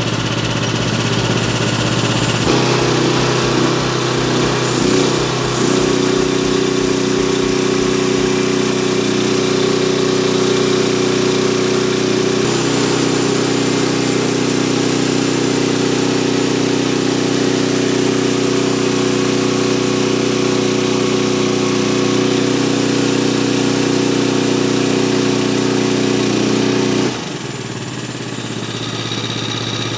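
Small diesel engine running, driving a saw blade through a belt. About two and a half seconds in, a strong steady hum joins it, and it stops abruptly about 27 seconds in. The belt is slipping, which the owner blames on the diesel.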